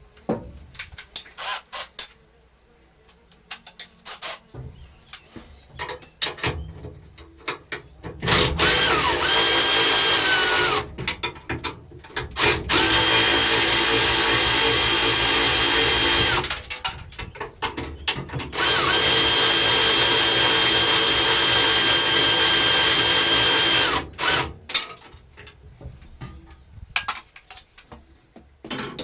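Handheld electric power tool run twice, for about eight seconds and then about five seconds: its motor whine rises, holds steady and falls away each time. Scattered clicks and knocks of hand work come before, between and after the runs.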